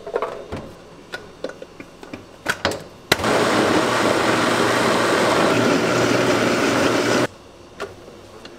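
Blender with a stainless steel jug switched on with a click about three seconds in, running steadily for about four seconds as it purées whole garlic cloves with minced garlic and ginger, then cutting off suddenly. A few light knocks and clicks come before it starts.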